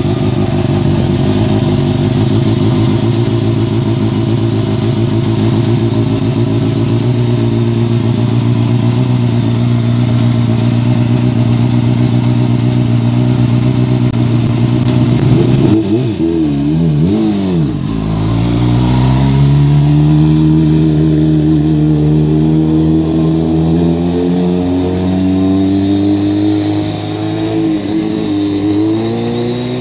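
Racing sport motorcycle's engine running at a steady fast idle, then revved up and down unevenly about two-thirds through, after which the engine note climbs and holds with small rises and falls as the bike is ridden on the track.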